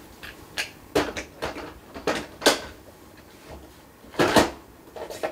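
Hard plastic knocks and clunks as a battery pack is handled and pushed into the battery bay of an APC Back-UPS, a run of light knocks in the first half and a louder clunk a little after four seconds in as the pack goes in.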